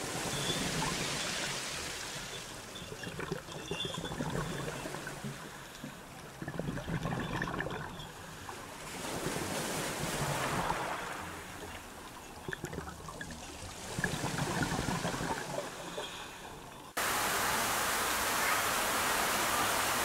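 Surging water noise that swells and fades every two to three seconds, with crackling in it; about three-quarters of the way through it cuts abruptly to a steady, even rush of water.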